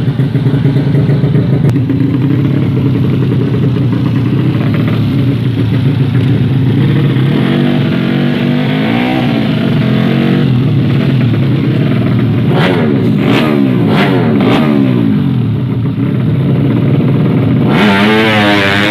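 Tuned motorcycle engines running and revving, with the pitch rising and falling in several sweeps through the middle. A different, wavering engine note takes over suddenly near the end.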